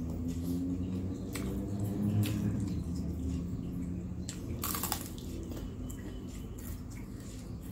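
Close-up mouth sounds of eating fried gorengan snacks dipped in peanut sauce: wet chewing and squishing with scattered crisp crunches, and a louder crackling crunch of a bite a little under five seconds in.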